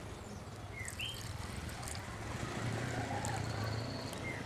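Water poured from a plastic mug onto fresh potting soil in terracotta pots: a soft trickle that grows fuller about halfway through.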